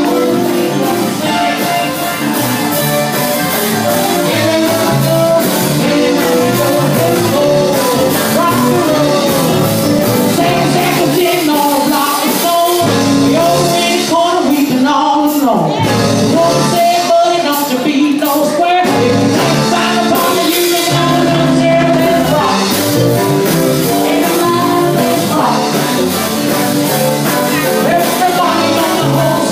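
Live blues band playing, with a singer and guitar.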